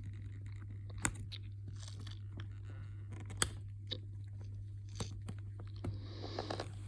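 Faint scattered clicks and scratches of a metal paperclip being worked inside an iPad's charging port, digging out dirt and fluff, over a steady low hum.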